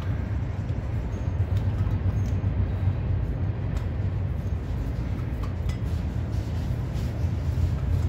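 A steady low rumble with a few faint metallic clinks from handling the front brake caliper and disc.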